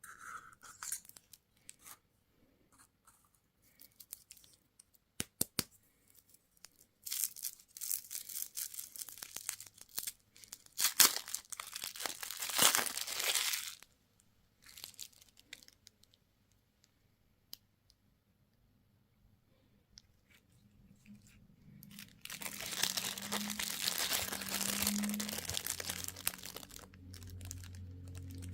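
Candy and toy packaging being unwrapped: plastic wrappers crinkling and tearing in two long spells, with scattered small clicks and taps between them.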